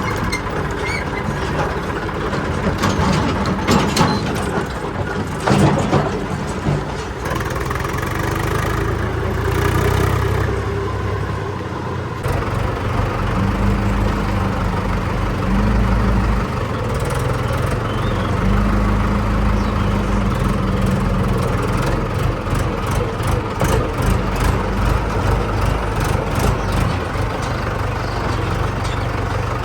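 Heavy diesel engine of a tractor or backhoe loader running, its speed shifting about halfway through, with a few sharp knocks in the first several seconds.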